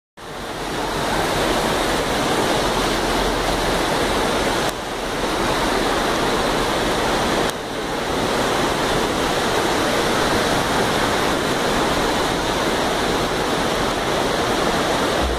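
Heavy rain and floodwater rushing across a street: a steady, loud wash of water noise that dips briefly twice, about five and eight seconds in.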